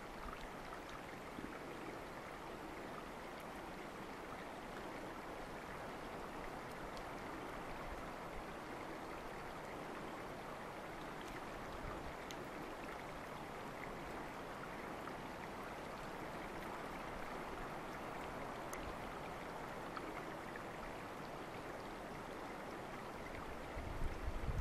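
Running water of a small stream making a steady rushing sound, with a few faint ticks. Low rumbling bumps come in near the end.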